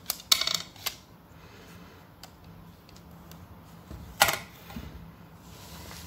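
Plastic Lego Technic parts of a rubber-band gun mechanism clicking as it is handled: a quick rattle of clicks just after the start, then one louder sharp snap about four seconds in.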